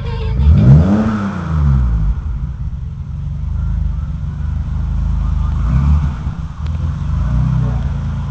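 BMW 635CSi's straight-six engine heard through a custom stainless steel exhaust: one quick rev that rises and falls about a second in, then a steady idle with two small throttle blips later on.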